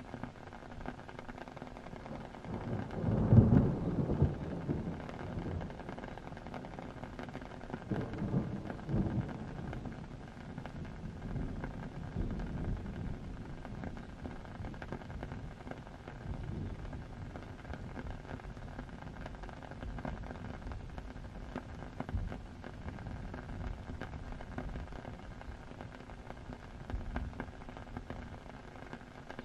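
Steady rain with low rumbles of thunder. The loudest rumble comes about three seconds in, another around eight seconds, and fainter ones follow.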